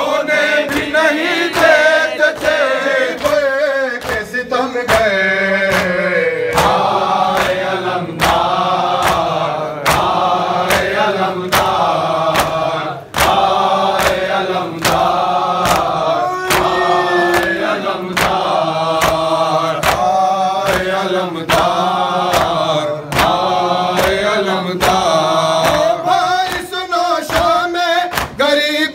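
Male voices chanting a noha, a Shia lament in Urdu, as a group in unison, with a steady beat of sharp strikes from matam (rhythmic chest-beating) keeping time.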